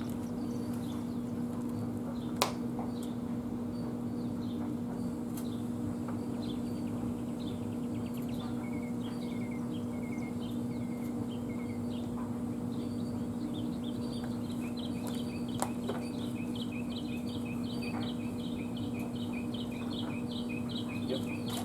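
Small birds chirping outdoors, with short calls that turn into a fast, even string of chirps, about two a second, in the last several seconds. A steady low hum runs underneath, and there is one sharp click about two and a half seconds in and a couple of fainter clicks later.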